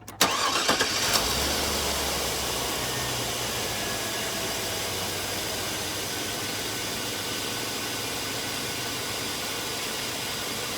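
2001 Chevy Suburban V8 engine started: a brief burst of starter cranking just after the start as it fires, then a steady idle.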